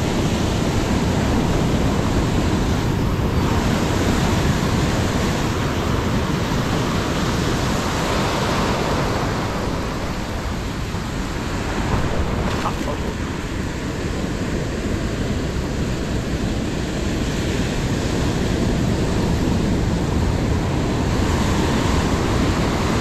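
Ocean surf breaking and foamy wash rushing around the wader's feet, a continuous roar that eases a little about ten seconds in and then builds again. Wind buffets the microphone.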